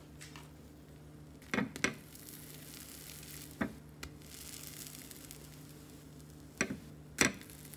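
Pancake batter sizzling faintly in a frying pan, over a steady low hum. A slotted metal spatula scrapes and taps against the pan about five times as it is worked under the pancake.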